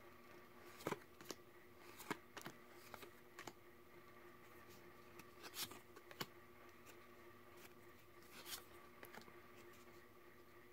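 Faint, irregular soft clicks and swishes of trading cards being slid one behind another in the hand as a stack is flipped through, over a faint steady room hum.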